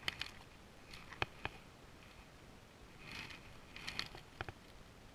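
Handling noise from a spinning rod and reel: scattered sharp light clicks, a few about a second in and more around four seconds, with soft rustling between them.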